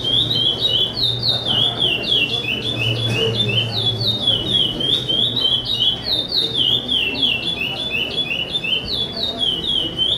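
Chopi blackbird (preto charrua) singing: an unbroken run of quick, clear whistled notes, each sliding down in pitch, several a second.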